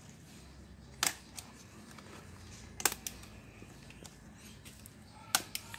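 Scissors snipping plastic cable ties on a plastic crate: a few short, sharp clicks, about a second in, near three seconds, and twice close together near the end.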